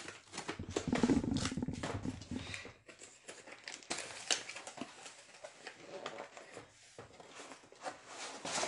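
Cardboard shipping box being opened and handled: flaps rubbing and scraping, with irregular knocks and rustles.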